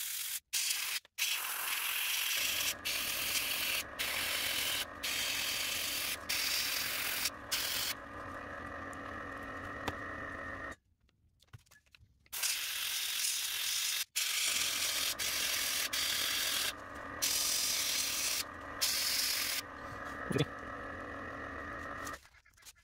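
Gravity-feed airbrush spraying paint onto a small wooden crankbait. The hiss of air and paint starts and stops sharply every second or so as the trigger is worked, over a steadier lower rush of air. It drops out about halfway through and starts again after a second or two.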